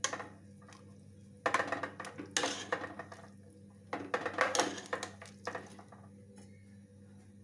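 Metal ladle stirring a spiced liquid in a pressure cooker, clinking and scraping against the pot in two bouts, about a second and a half in and again about four seconds in.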